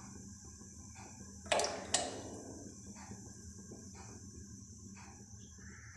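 Mustard oil poured in a thin stream into a karahi of oil, a faint steady pour. Two sharp knocks with a short ring come about a second and a half and two seconds in. A faint chirp repeats about once a second in the background.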